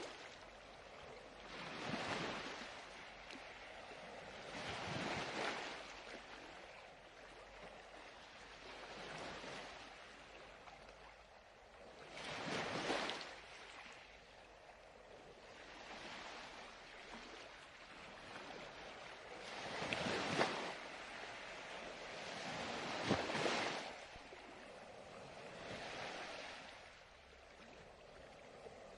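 Ocean waves breaking on a shore, one wave washing in every few seconds and each surge swelling and fading.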